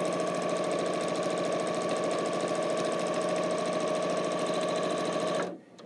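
Electric sewing machine stitching a seam at a steady speed: an even motor hum with rapid needle strokes, stopping suddenly near the end.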